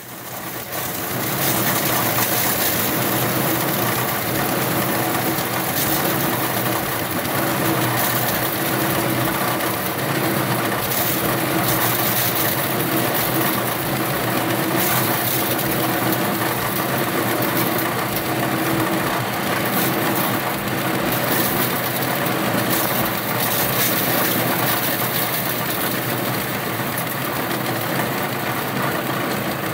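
Engine-driven hammer mill running at full speed, grinding maize stalks fed into it by hand. The engine and mill noise comes up in the first second or two and then holds steady and loud.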